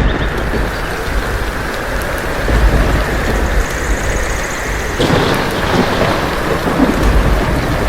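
Heavy rain pouring steadily, with a low thunder rumble underneath that swells a few times.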